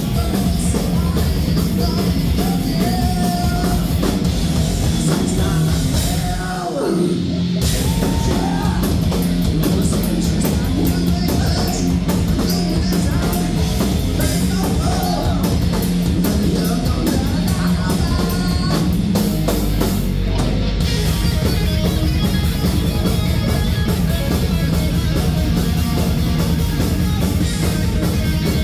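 Heavy metal band playing live: distorted electric guitars over a drum kit, loud and driving. About six seconds in, a falling pitch glide brings a brief dip in the music.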